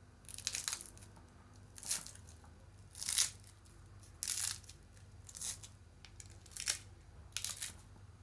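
Crisp, flaky crust of freshly baked potato börek rolls made from baklava phyllo sheets, crackling as a fingertip presses down on them. About seven short crunches come roughly a second apart.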